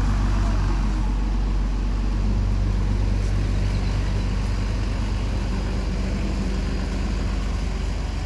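A heavy engine running steadily at an even low pitch.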